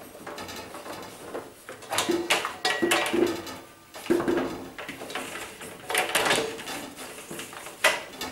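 Irregular metallic clunks, rattles and scraping from a tumble dryer's steel drum and cabinet as a new multi-rib drive belt is threaded over the drum by hand.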